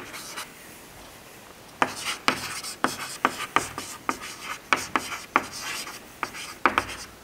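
Chalk writing a word on a chalkboard: a quick run of short scratching strokes and taps, starting about two seconds in.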